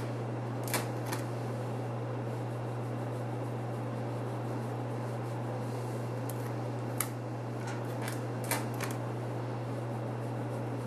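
Steady low hum with an even hiss, broken by a few light clicks: two about a second in, then four between seven and nine seconds in.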